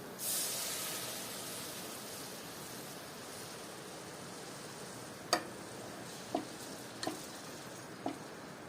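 Food dropped into hot oil, sizzling with a sudden hiss that fades over a couple of seconds, then four light knocks of a utensil against the pan while stirring.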